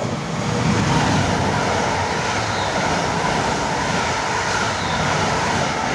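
Two coupled Class 350 Desiro electric multiple units passing at speed without stopping: a steady rush of wheels on rail and air that builds over the first second.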